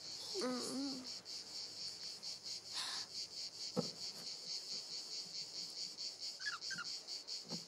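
Crickets chirping steadily, an even, fast pulsing trill. A brief rustle and a click come about three to four seconds in.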